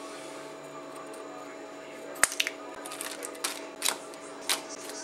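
Plastic tray and foil candy-kit packets being handled: a sharp snap a little over two seconds in, then a few crinkles and clicks, over a steady background tone.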